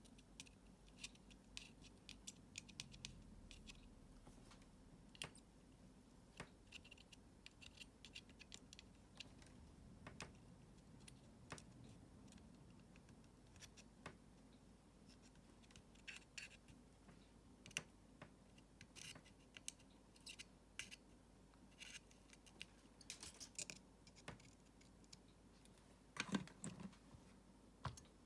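Faint, irregular small clicks, ticks and scratches of hand work on small parts, over a low hum.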